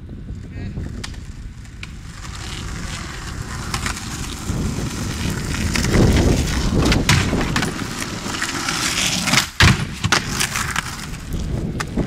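Skateboard wheels rolling on pavement, growing louder as the skater approaches, then the clack of the board hitting a wooden box about halfway through. A sharp board slap comes about three-quarters through, and then the rolling carries on.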